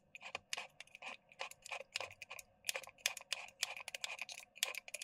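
Quick, irregular light clicks, several a second, as a screwdriver levers round the brushless motor's fan of an opened cordless jigsaw, turning the motor by hand and working its gear reduction and up-and-down plunger.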